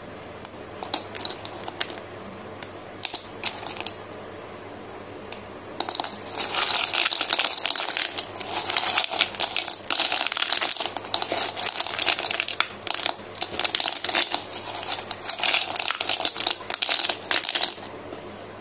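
Slate pencil sticks clicking and clattering against each other as hands handle and stir through a pile of them. A few separate clicks at first, then from about six seconds in a dense, continuous rattle that stops shortly before the end.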